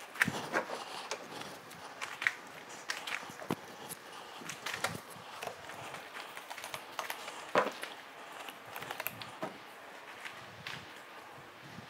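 Irregular light clicks, taps and rustles of someone moving around a car and handling a drying towel and a spray bottle, with footsteps on a plastic floor sheet.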